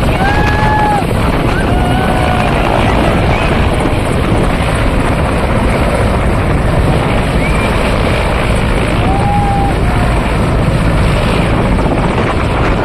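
Mi-17 military transport helicopter lifting off and climbing away, its rotor and turbine engines running loud and steady.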